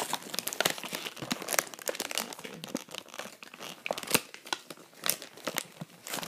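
Crinkly plastic toy packaging being handled and torn open by hand, an irregular run of crackles.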